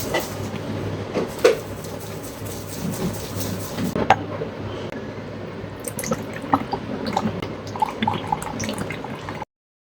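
Liquid sounds with scattered small knocks and clicks, which cut off suddenly just before the end.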